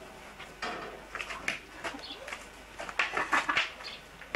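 Pig calling in short, irregular bursts.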